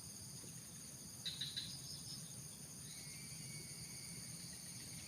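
A steady, faint chorus of crickets and other insects, with a few short soft clicks a little over a second in.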